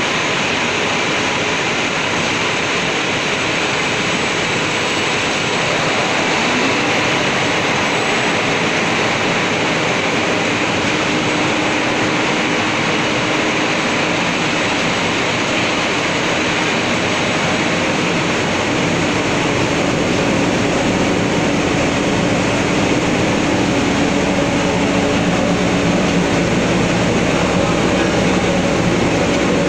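Comber waste collection system in a spinning mill: a loud, steady rush of suction air through the ducting, with running machinery beneath it. A low hum grows stronger about two-thirds of the way in.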